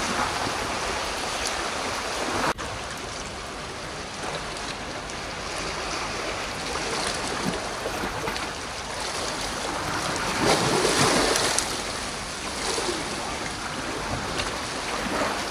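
Seawater washing against a rocky shoreline, a steady wash with one louder surge about ten seconds in.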